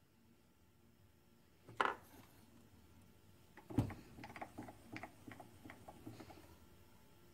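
Metal knocks and clinks from work at a mill-drill's vise: a sharp knock, a louder one about two seconds later, then a run of light ticks and clinks, over a faint steady hum.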